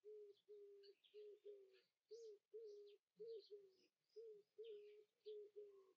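Faint birdsong: a bird repeating a short low note about twice a second, with fainter high chirps over it.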